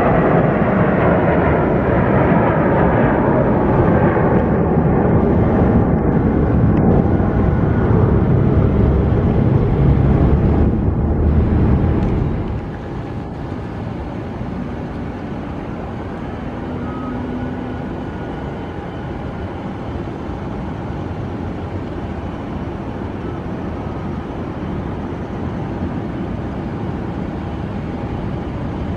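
Airbus A321 jet engines at takeoff thrust as the airliner lifts off and climbs past, the engine tones falling in pitch. About twelve seconds in the sound cuts abruptly to the quieter, steady running of a Boeing 767's jet engines at low power on the runway.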